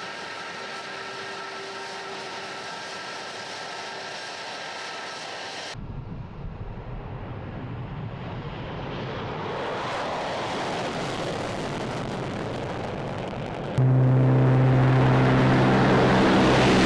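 Jet engines of a Tu-22M bomber running on the runway with a steady whine, then the broad rushing jet noise of a takeoff that grows louder. Near the end a much louder, deep steady drone cuts in suddenly.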